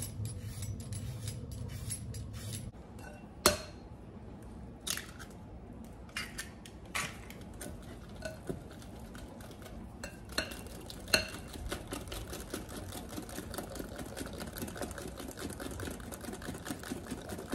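A hand peeler scraping a potato, then a metal whisk beating eggs into flour in a glass mixing bowl. Scattered sharp clinks give way, from about halfway, to fast, steady clicking and scraping against the glass.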